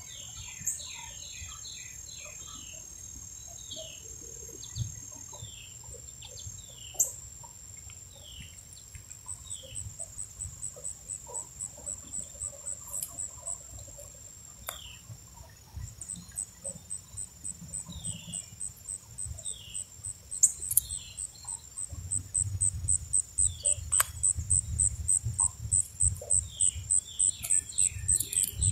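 Backyard insect and bird chorus. A steady high insect buzz gives way about nine seconds in to a high pulsing chirp at about three to four pulses a second, over short falling bird chip notes. A few sharp clicks come from the crow pecking at seed on the wooden stump feeder.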